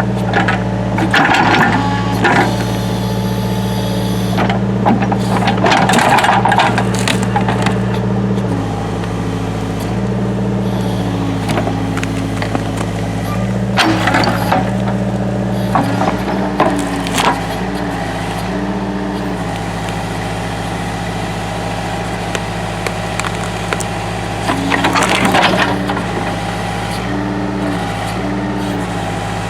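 Engine of land-clearing equipment running steadily, its speed stepping up and down several times, with loud cracking and crushing of wood and brush every few seconds.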